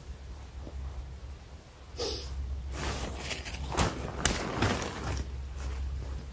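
Tent fabric rustling and a tent pole scraping as the pole is flexed and worked into the tent, with a few sharp clicks. It is loudest from about two seconds in to about five seconds in, over a low steady rumble.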